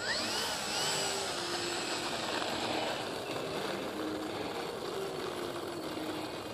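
Electric motor and propeller of a small RC model airplane running as it taxis on asphalt, a steady whir whose pitch steps up and down with the throttle.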